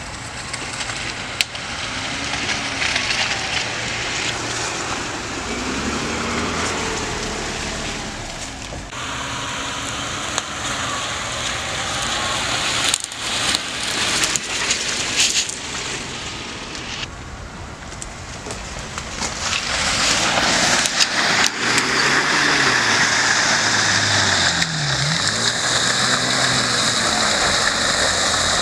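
Jeep Wrangler engine revving up and down as it drives through mud. Its tyres churn and splatter mud, with scattered crackling and clicks. It grows louder in the second half.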